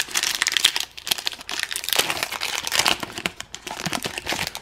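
Foil Pokémon booster pack wrapper crinkling as it is torn open and the cards are pulled out, a dense, irregular crackle.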